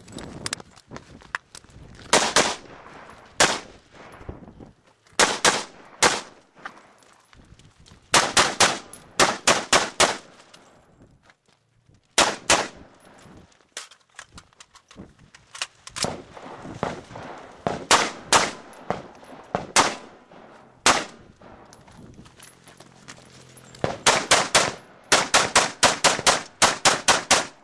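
AR-15-style carbine fired semi-automatically in strings of sharp shots: pairs and short bursts with pauses between, then a fast run of about ten shots near the end.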